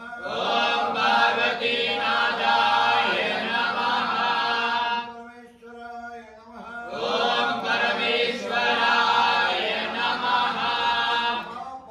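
A group of men chanting homam mantras together in unison. The chant comes in two long phrases of about five seconds each, with a short lull between.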